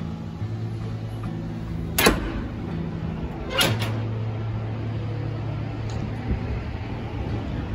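Glass entrance door with a metal push bar: a sharp clack about two seconds in as the bar is pushed and the door opens, then a doubled clack a second and a half later as the door swings shut and latches, over a steady low hum.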